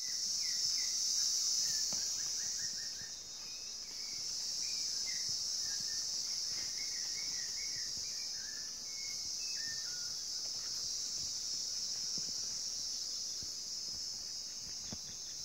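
Rainforest insect chorus: a steady, high-pitched drone. Scattered short bird chirps, some in quick runs of a few notes, sound over it.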